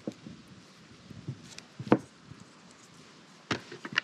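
Scattered handling clicks and knocks as scissors and small plastic mount parts are handled over a carbon-fibre helmet shell. The loudest is a sharp knock about two seconds in, and a quick cluster of clicks comes near the end.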